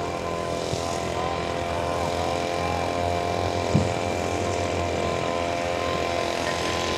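A steady engine drone with several held tones, with one short thud about four seconds in.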